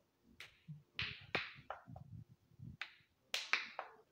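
Silicone bubbles of a pop-it fidget spinner pressed in by the fingers, giving a string of short pops, about eight in all, often two in quick succession.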